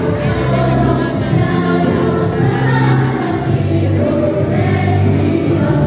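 Children's choir singing, holding long notes over steady low accompanying tones.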